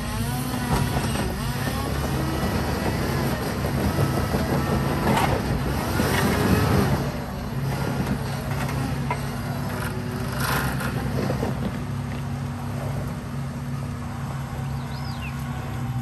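Jeep engines running with a steady drone while a red Jeep Wrangler is pulled up a rock ledge on a line from a white Jeep Wrangler Rubicon, getting louder for a few seconds near the middle.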